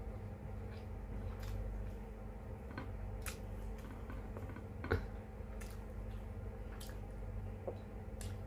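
Close-up eating sounds: scattered wet smacks and clicks of chewing, with one sharper click about five seconds in, over a steady low hum.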